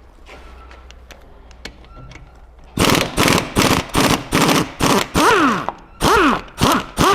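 Impact wrench hammering on the rear shock absorber's mounting bolt in a series of short bursts starting about three seconds in, each with a whine that rises and falls in pitch as the tool spins up and stops.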